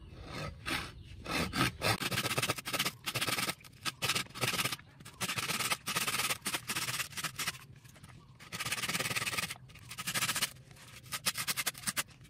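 A hand pruning saw cutting into a coconut, back-and-forth scraping strokes in runs broken by brief pauses.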